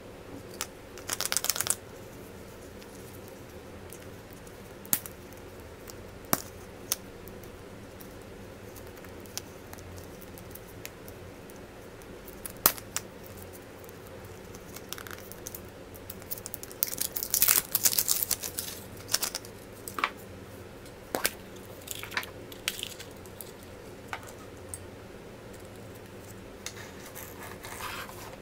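Surprise eggs and their contents being unwrapped and handled: short bursts of crinkling wrapper, about a second in and again for a couple of seconds past the middle, with scattered sharp clicks and taps of small plastic parts, over a steady low hum.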